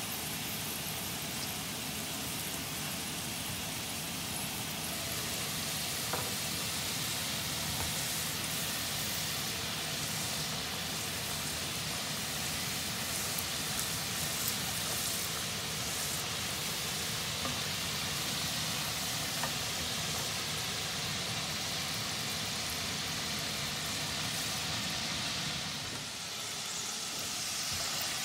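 Fresh-cut potato fries deep-frying in a saucepan of hot oil: a steady sizzle.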